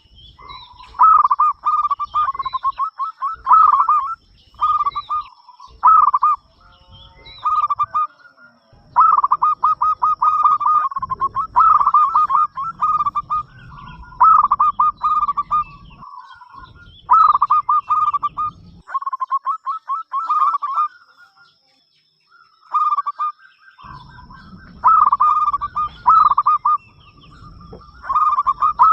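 Zebra dove (perkutut) cooing: phrase after phrase of quick, rattling staccato coos, each a second or two long with short pauses between, and a longer pause about two-thirds of the way through.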